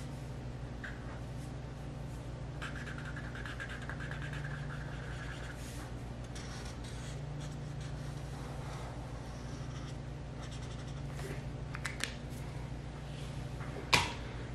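Felt-tip marker stroking and scratching on paper over a steady low hum, with a thin high tone lasting about three seconds a few seconds in. A single sharp click near the end is the loudest sound.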